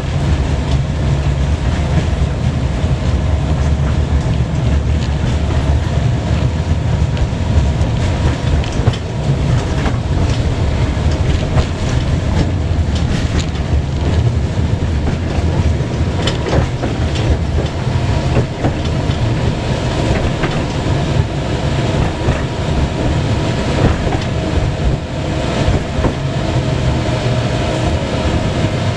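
Tram running along the line, heard from inside the passenger car: a steady low rumble with a steady tone over it and scattered knocks of the wheels over the track.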